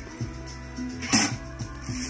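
Background music with a slow beat: held low bass notes and one sharp drum hit a little over a second in.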